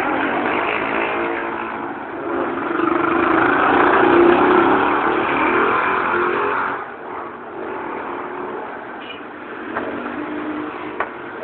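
A motor vehicle passing close by, its engine loud for about seven seconds and then fading away. A few short, sharp clicks follow near the end.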